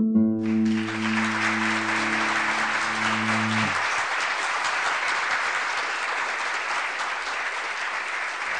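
The last chord of a guitar piece rings out and cuts off suddenly a little under four seconds in, while applause starts just after it begins and carries on steadily.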